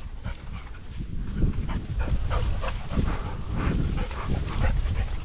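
Pointing Labrador retriever making short, repeated sounds while searching cover for a downed bird, over a steady low rumble.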